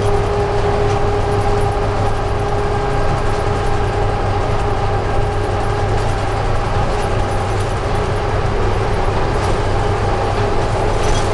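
Steady running noise inside a moving locomotive cab: a low rumble under a constant hum of a few held tones.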